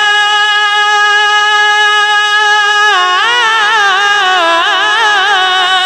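A naat reciter singing without words, holding one long high note for about three seconds, then ornamenting it with wavering, melismatic runs.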